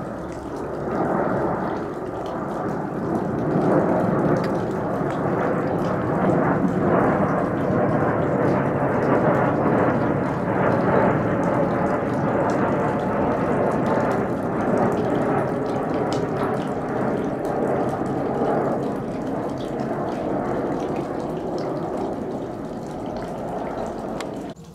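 Boeing 737 jet engines roaring as the airliner passes overhead. The noise swells over the first few seconds, holds strongest for several seconds, then slowly fades away.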